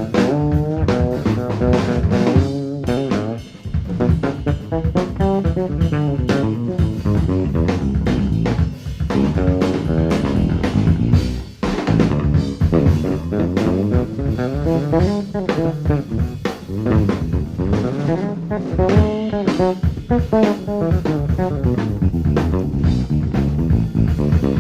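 Live jazz trio playing: alto saxophone lines over a busy drum kit with rimshots and a Fender Jazz electric bass, with brief drop-outs a few seconds in and again near the middle.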